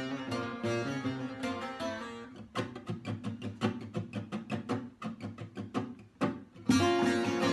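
Instrumental halay passage on bağlama and guitar. It starts as full strummed playing, thins about two and a half seconds in to a run of single plucked notes, and the full playing comes back in louder near the end.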